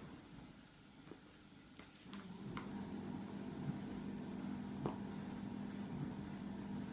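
A few small clicks and taps as a toddler handles play-dough pieces and small toys on a board, over a steady low hum. The hum drops out for the first couple of seconds and then returns. The sharpest click comes about five seconds in.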